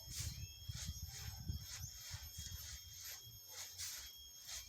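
Sand sifter at work: sand being shaken through a sieve in a regular rasping rhythm of about three strokes a second, with low thumping underneath.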